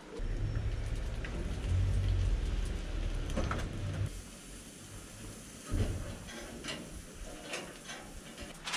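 Steady rain falling. A loud low rumble runs through the first four seconds and returns briefly near six seconds, and a few light clicks and taps sound as vegetables and skewers are set on a gas grill.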